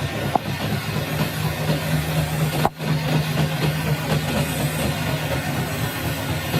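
Workshop machinery running steadily with a low hum and a busy mechanical clatter over it, dropping out for an instant a little before the middle.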